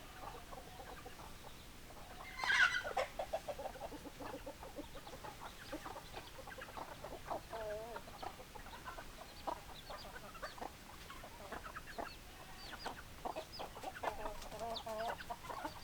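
Chickens clucking: a run of short, repeated clucks with a few longer wavering calls, and one louder, sharper call about two and a half seconds in.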